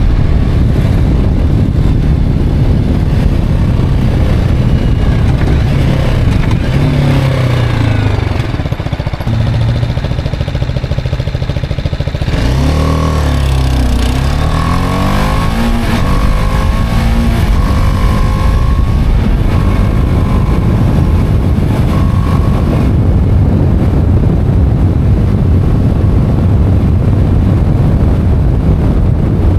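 BMW G310R's single-cylinder engine running on the move, its note falling and then climbing again about halfway through as the rider eases off and accelerates.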